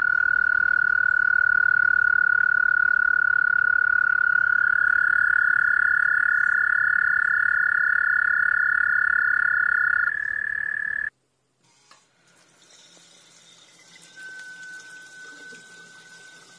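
A toad trilling: one long, loud, steady high trill, joined about four seconds in by a second, slightly higher trill; both stop abruptly about eleven seconds in. Near the end, a tap runs faintly into a sink with a thin whistling tone.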